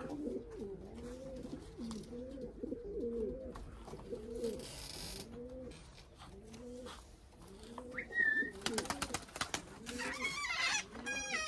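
Domestic pigeons cooing over and over, one phrase after another. About eight seconds in there is a short rising whistle, then a quick run of sharp clicks, the loudest thing heard.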